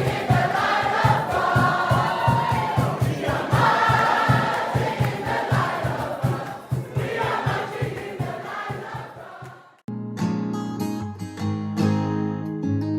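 Music: a group of voices singing over a steady beat, fading down and cutting off about ten seconds in. Acoustic guitar strumming comes straight in after the cut.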